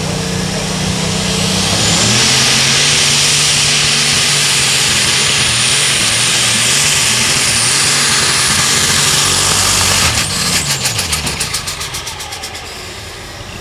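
Light super stock pulling tractor's engine running at idle, then going to full throttle about two seconds in with a high turbo whistle as it pulls the sled. Near ten seconds the throttle comes off and the engine winds down in a series of pulses.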